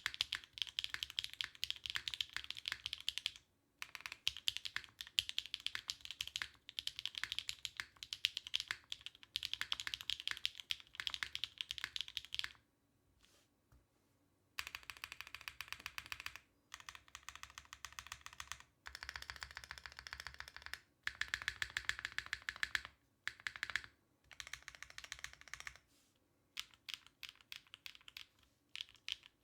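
Typing on a TKD Cycle7 custom mechanical keyboard with stock HMX Deep Navy switches, an aluminium plate on gasket strips and OG Cherry doubleshot keycaps. Fast keystrokes come in bursts of a few seconds, with a two-second pause a little before halfway and sparser keystrokes near the end.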